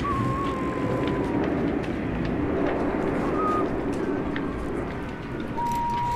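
Strong libeccio wind gusting through a town street, a steady low rumble of wind on the microphone. A thin high whistle comes and goes over it, at the start, briefly around the middle, and again near the end, with a few faint knocks.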